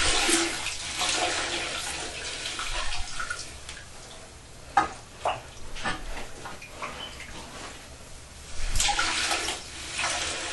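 Water splashing and trickling in bursts as the leftover water is emptied out of a shut-off toilet, with a couple of sharp knocks about five seconds in.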